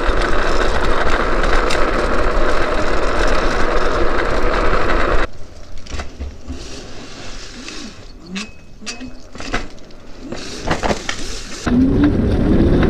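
Steady rushing wind and road noise from riding an electric drift trike at top speed on pavement. The noise cuts off suddenly about five seconds in, giving way to a quieter stretch with scattered clicks and short faint sounds. The riding noise returns about a second before the end.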